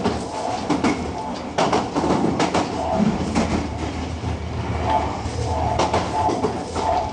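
Tobu 50090 series electric train running at speed, heard from inside the leading car: steady running noise and hum, with wheels knocking over rail joints several times in the first three seconds.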